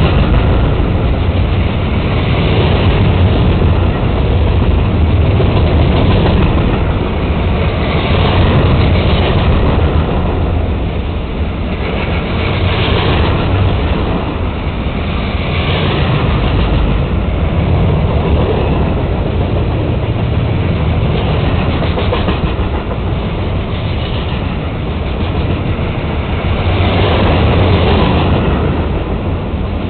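Open-top freight cars of a long train rolling past close by: a loud, continuous rumble and rattle of wheels on the rails that swells and eases every few seconds.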